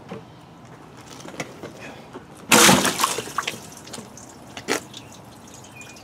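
Rainwater splashing off a Husqvarna lawn tractor's wet seat as the seat is tipped forward on its hinge: one short, loud splash in the middle, with a few light clicks and knocks around it.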